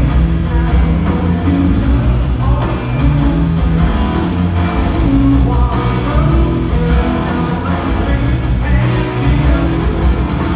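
Live heavy rock band playing loudly in an arena, heard from the audience seats: distorted electric guitar, heavy bass and drums together, with the room's echo.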